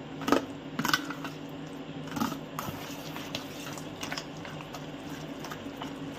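Steel spoon stirring a thick, wet, crumbly mixture of paneer and milk-soaked semolina in a stainless steel bowl: soft squishing with irregular clinks and scrapes of metal on metal, a few of them sharp. A steady low hum runs underneath.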